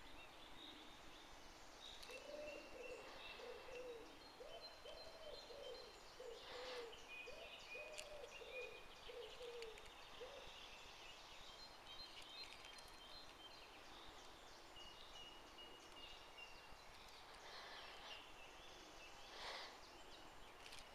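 Faint bird calls: a run of about seven low, rounded coos or hoots over several seconds early on, with thin high chirps of other birds throughout.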